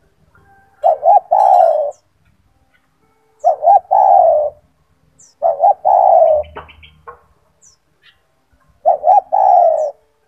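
Spotted dove (tekukur) in full song, cooing loudly. It gives four phrases, each two quick short notes followed by a longer drawn-out note, spaced a few seconds apart.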